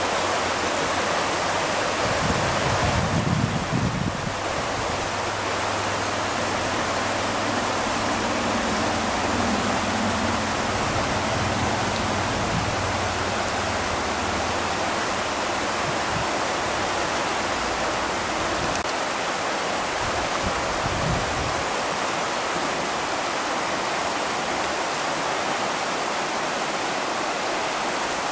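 River water rushing steadily over and around boulders in shallow rapids. A brief low rumble comes about three seconds in and again around twenty-one seconds.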